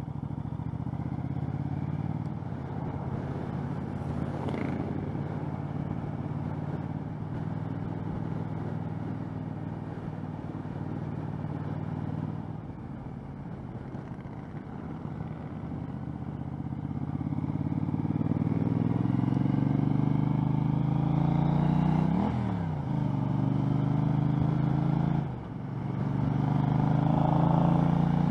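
2013 Triumph America's 865cc parallel-twin engine under way, heard through a helmet-mounted microphone: a steady low note at first, then rising in pitch and loudness as the bike pulls harder. The revs drop and pick up again twice near the end, as at gear changes.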